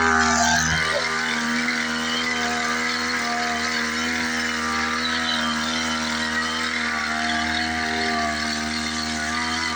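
Small engine of a motorised sprayer running steadily at a high, even speed while pest spray is applied against fleas and lice. There is a short hissing burst about half a second in.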